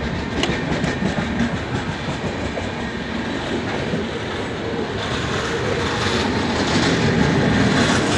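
Passenger coaches of an Indian Railways express train rolling past, their wheels clattering on the rails, getting louder after about six seconds.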